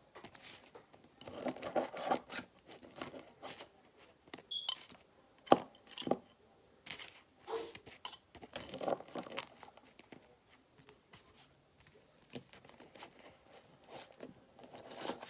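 Toaster waffles being cut up: irregular scraping and crunching, with a few sharp clicks.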